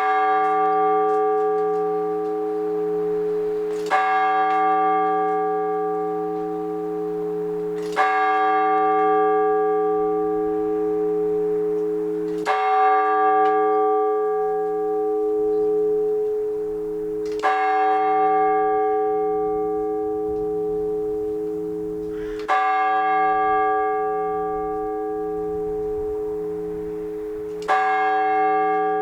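A single Orthodox church bell struck slowly, seven times about every four to five seconds, in the measured blagovest manner. Each strike rings on, and its deep hum carries over into the next stroke with a slow wavering beat.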